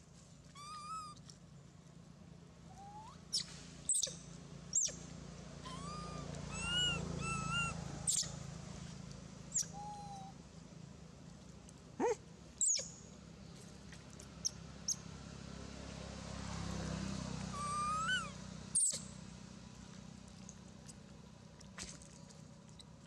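Long-tailed macaques calling: short wavering squeaks and coos scattered irregularly, with a few very brief sharp high chirps as the loudest sounds.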